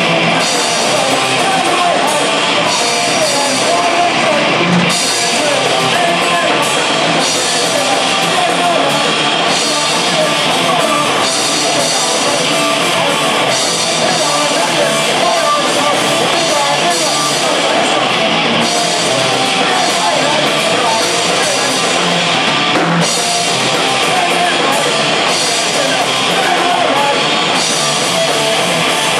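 A live rock band playing loud: electric guitars and a drum kit with cymbals, and a singer's vocals over them.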